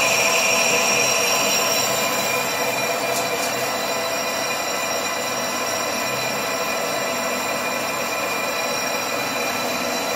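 Metal lathe running steadily, spinning a Volkswagen Golf 4 brake disc that is being refaced because it is warped; the gear drive gives a steady whine of several fixed tones over a mechanical hiss, a little louder for the first second or two.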